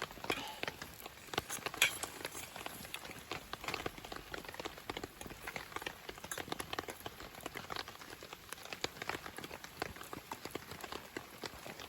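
Campfire crackling: dense, irregular pops and snaps of burning wood.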